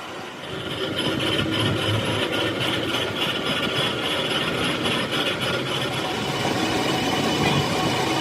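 A machine running with a steady mechanical noise that builds up about a second in and then holds.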